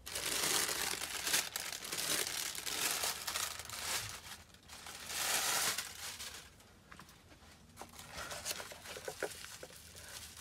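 Crepe paper and plastic packaging rustling and crinkling as they are lifted out of the box: loud bursts over the first six seconds, then quieter handling with small crackles near the end.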